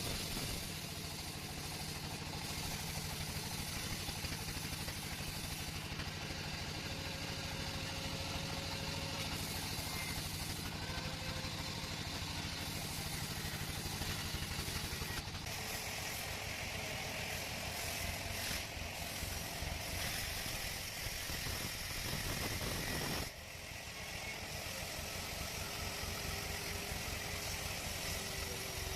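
Sawmill machinery running: a steady engine-like drone with a fast low pulse and a hiss over it, changing abruptly a couple of times.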